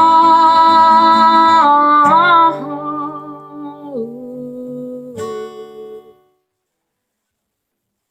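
Closing bars of a solo acoustic guitar-and-voice song: a held last sung note over the guitar ends about two and a half seconds in. A few soft guitar notes and a final chord about five seconds in ring out, and the sound stops about a second later.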